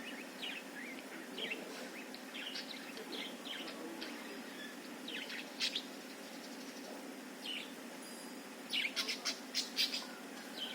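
Budgerigar chirping in short scattered notes, with a quick run of louder chirps near the end, over a steady low hum.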